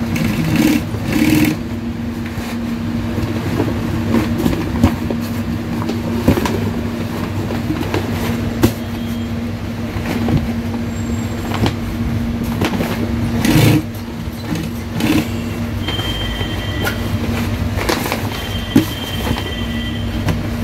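MAQI industrial sewing machine running steadily, stitching a seam through heavy waterproof canopy fabric, with a constant motor hum.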